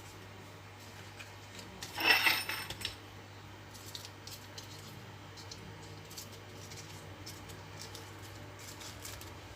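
Kitchen utensils and dishes handled while ingredients are added to a mixing bowl. One louder clatter with a short metallic ring about two seconds in, then scattered light clicks and taps.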